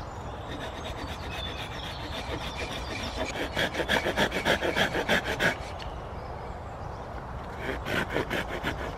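Wood being worked by hand with a tool in quick, rhythmic back-and-forth strokes, about five a second. There is a burst of about two seconds in the middle and a shorter one near the end.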